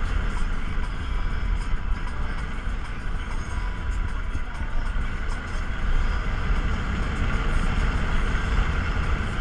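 Steady road and wind noise inside the cabin of a Tesla Model S electric car driving along, a low rumble with no engine sound.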